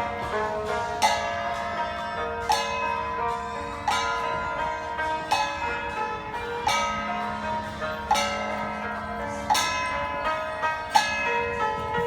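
Chaozhou opera accompaniment: struck metal percussion rings out on a slow, steady beat, about one stroke every second and a half, over sustained tones.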